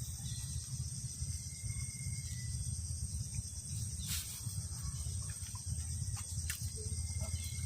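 Steady, high-pitched chorus of insects over a low rumble, with a few sharp clicks about four and six and a half seconds in.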